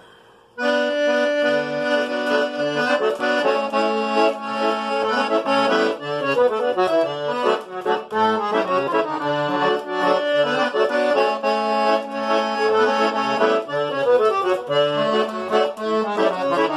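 Accordion (gaita) playing the instrumental introduction to a song, starting abruptly about half a second in: a moving melody with sustained chords over bass notes struck at a steady beat.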